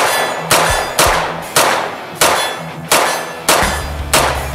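A 9mm pistol-caliber carbine fired in slow, steady aimed shots, about eight in all roughly two a second. Each shot is followed by the ringing clang of a steel plate target being hit.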